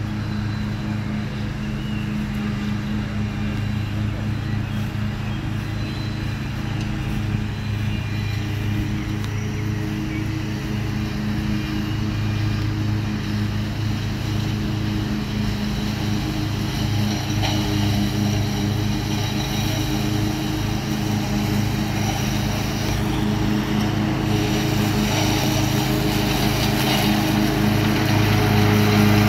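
Grillo FX27 zero-turn ride-on mower with a front deck, running steadily while cutting grass. Its steady engine hum grows gradually louder as it drives closer.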